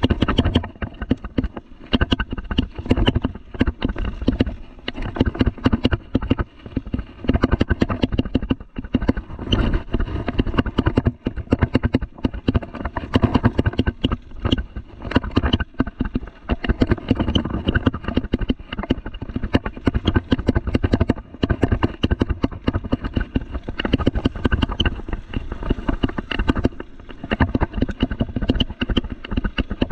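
Mountain bike rattling over a dirt trail, picked up by a handlebar-mounted camera: a dense, unbroken stream of knocks and rattles from the frame, chain and tyres on the bumps.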